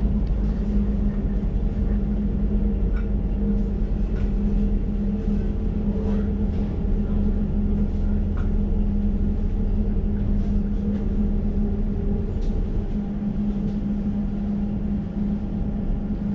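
Interior running noise of an Elizabeth line Class 345 train under way: a steady low rumble with a constant hum and a few faint clicks.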